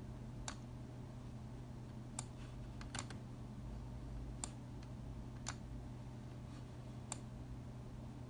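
Faint, sharp single clicks at irregular intervals, about seven in eight seconds, one of them a quick double, over a steady low room hum.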